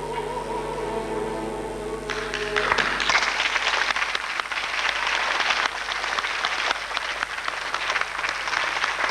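An orchestra holds its final chord, and about two seconds in the audience breaks into applause, which goes on steadily and densely.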